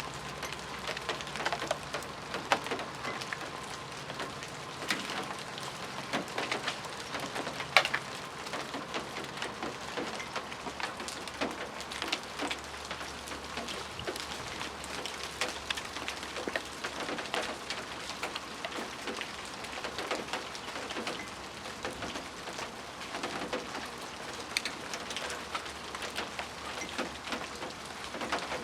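Ice falling from ice-coated trees as it melts, landing in a steady shower of small sharp hits like hail. A few louder single strikes stand out, the biggest about eight seconds in.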